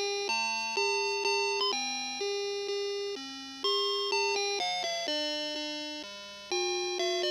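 Seiko Small World Worker DX karakuri alarm clock playing its electronic chime melody: bell-like notes struck one after another, about two a second, each fading before the next.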